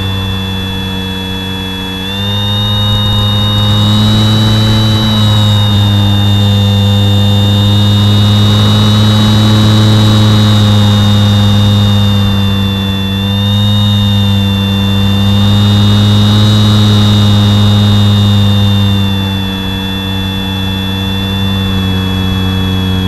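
Bixler 2 model plane's brushless electric motor and pusher propeller running in flight, heard from a camera on the plane. A steady buzzing whine with a rush of air, its pitch shifting slightly; it gets louder about two seconds in and eases off briefly twice.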